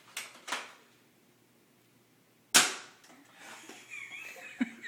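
Nerf blaster firing once: a single sharp pop about two and a half seconds in, preceded by two faint clicks.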